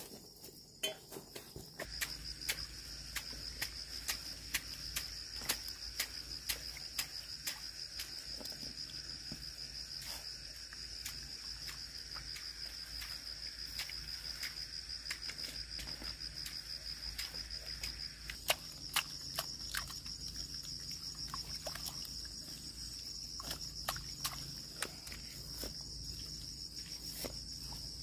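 Steady, high insect chirring that starts about two seconds in, with scattered short clicks and rustles from peanut plants being pulled up out of the soil.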